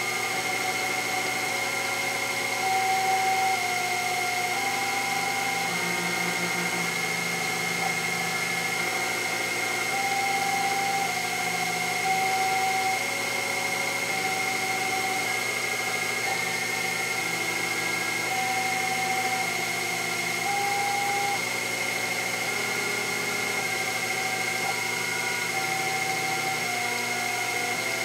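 Sherline CNC milling machine cutting a Delrin rod on its rotary fourth axis: the spindle runs with a steady high whine while the stepper motors sing in tones that jump to a new pitch every second or so as the axes change speed.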